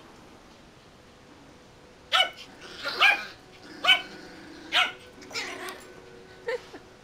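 Yorkshire terrier puppies barking in play: after a quiet start, about six short, high yaps come roughly one a second, beginning about two seconds in.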